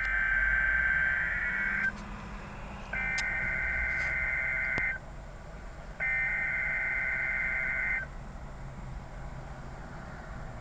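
Emergency Alert System data header heard over a radio receiver: three identical warbling electronic tone bursts of about two seconds each, about a second apart, the digital code that opens an alert broadcast.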